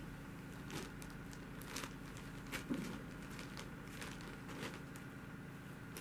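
Faint, irregular soft clicks and rustles over a low steady hum.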